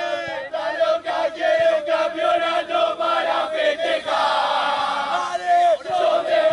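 A group of voices chanting together in a sung chant, holding long notes in repeated phrases.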